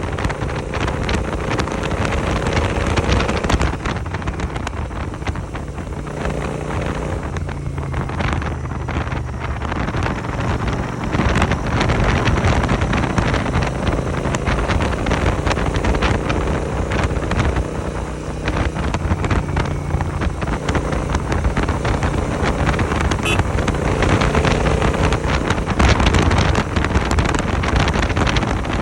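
Royal Enfield 650 parallel-twin engine running through an AEW 101 aftermarket exhaust while riding, its revs rising and falling, with heavy wind buffeting on the microphone.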